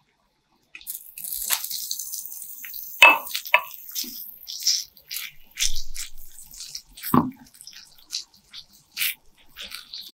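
Chopsticks clicking and tapping against a small steel bowl and frying pan as pieces of raw beef are dropped into hot oil, which sizzles during the first few seconds.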